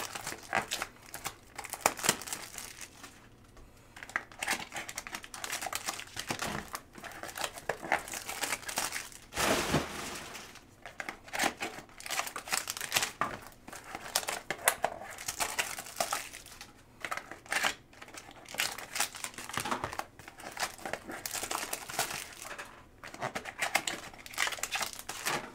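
Hands opening a 2023 Topps Museum Collection trading-card box and its cardboard pack: packaging crinkling and rustling in irregular bursts, with scattered clicks as the pack is opened and the cards slid out.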